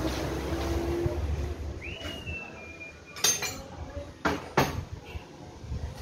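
A few sharp metal clinks and knocks from a chainsaw being handled on a workbench, one about three seconds in and two close together a second later.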